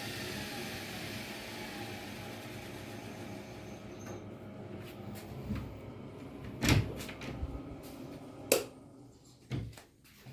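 Zanussi ZWSE680V washing machine winding down at the end of its final spin: the motor and drum whine falls in pitch and fades over the first few seconds. A series of sharp clicks and knocks follows, the loudest about two-thirds of the way through.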